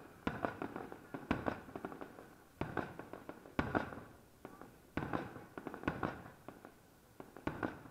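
Aerial firework shells bursting in a display: a string of sharp bangs about one a second, each trailing off in a rumbling echo.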